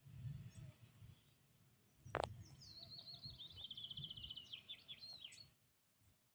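A songbird singing a rapid high trill with a few falling notes, lasting about three seconds, over a low rumble. There is a sharp click just before the trill begins.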